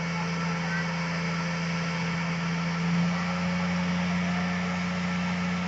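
Mobile crane's diesel engine running steadily with a low drone while it holds a railway wagon frame on its hook, the sound swelling briefly about halfway through.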